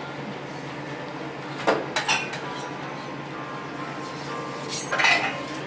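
Metal spatulas striking and scraping on a teppanyaki iron griddle: a few sharp metallic clinks about two seconds in, then a longer cluster of clatter near the end.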